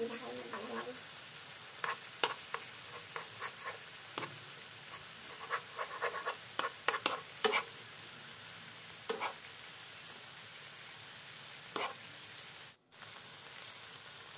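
Fried milkfish simmering in sauce with onions in a nonstick pan: a steady sizzle, with scattered sharp clicks and scrapes of a spoon against the pan.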